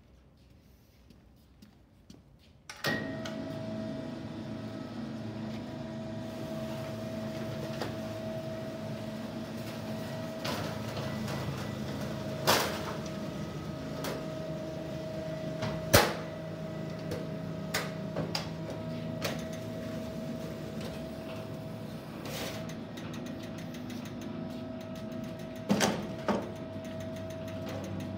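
RAS 22.81 Ductseamer, a powered duct seam-closing machine, starting up about three seconds in and running steadily with a constant motor whine, with a few sharp metallic knocks as it works along the sheet-metal seam.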